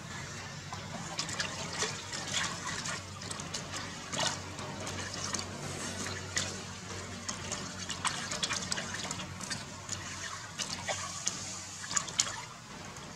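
Water splashing and trickling in a plastic tub as hands scoop it over a baby monkey being bathed, in quick, irregular splashes.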